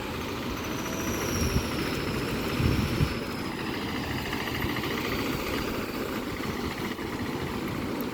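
Steady rushing noise of floodwater over a road, with a vehicle engine running underneath.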